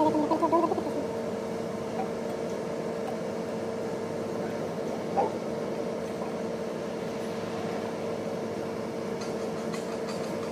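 Steady machine hum at one constant pitch.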